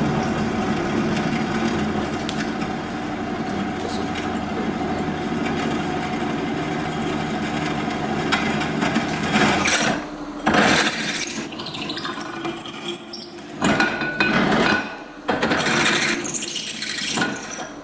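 Bench drill press boring holes in a solid copper bar held in a machine vise. A steady motor hum fills the first half, then several loud, harsh cutting bursts follow from about ten seconds in.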